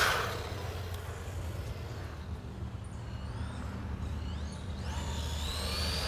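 WLToys 124019 RC buggy's electric motor whining as the car speeds away after a close pass at the start, faint and rising and falling in the distance, then growing louder with a rising whine as it heads back near the end. A steady low rumble runs underneath.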